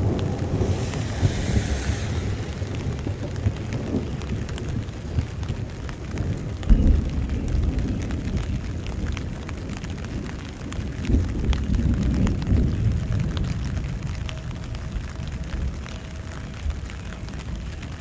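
Steady rain with many single drops ticking close to the microphone, under a low rumble of thunder that swells and fades a few times.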